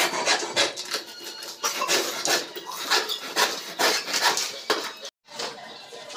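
A large knife blade chopping a small piece of wood held on a bucket rim, cutting a wooden wedge: sharp knocks about three a second that stop abruptly about five seconds in.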